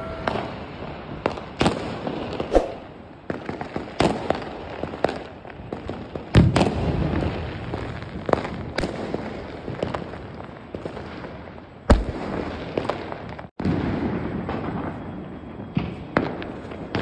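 Firecrackers and aerial fireworks going off all around: irregular sharp bangs, a few much louder than the rest, about six and twelve seconds in, over a constant background of more distant crackling and popping.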